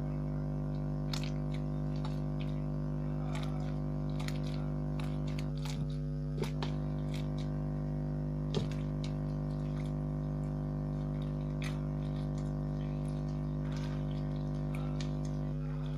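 A steady low hum throughout, with faint, scattered small clicks and squelches of sticky homemade slime being kneaded by hand.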